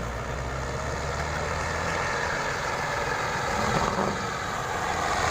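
An engine running amid rushing surf and wind noise. A steady low engine hum gives way after about two seconds to a broad rushing noise that slowly grows louder.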